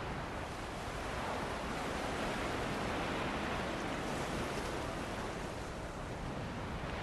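Ocean waves washing onto a beach under steady wind: a continuous rushing noise that swells gently a couple of seconds in and eases again.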